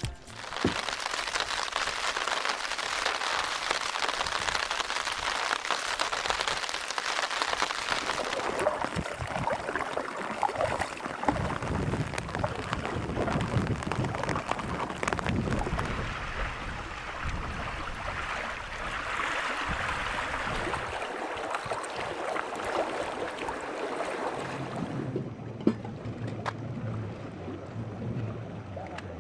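Rain falling on a canoe and the water around it: a steady hiss with scattered light taps, thinning about eight seconds in and dropping again near the end.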